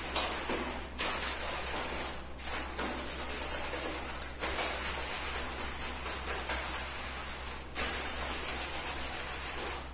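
Hands scrubbing shampoo lather through wet hair: a steady wet, hissing rub with short breaks about one, two and a half, four and a half and seven and a half seconds in. A low steady hum runs underneath.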